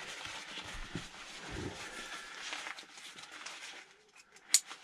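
Nylon roll-top dry bag rustling and crinkling as it is rolled down and pressed to squeeze the air out, with a few soft thumps. Near the end comes a single sharp plastic click as the buckle snaps shut.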